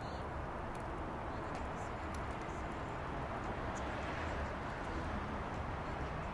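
Firewood burning in a fire pit: a steady rushing hiss with scattered small crackles.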